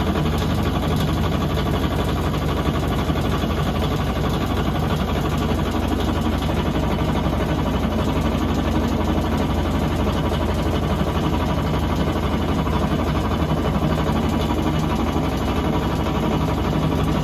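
Electrolux LTE12 washing machine running with a loud, steady mechanical hum and drone that does not let up.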